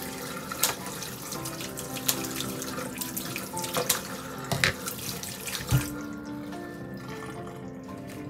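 Kitchen tap running into the sink, with several sharp snips of scissors cutting flower stems under the stream; the water stops about two-thirds of the way through.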